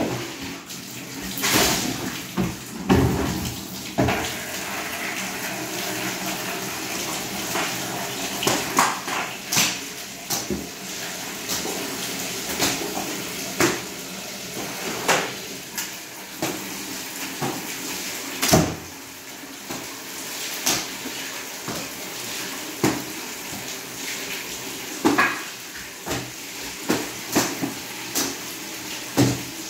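Wet cleaning of a tiled floor with a long-handled tool: a steady watery wash with frequent sharp knocks and clacks, the loudest knock about two-thirds of the way in.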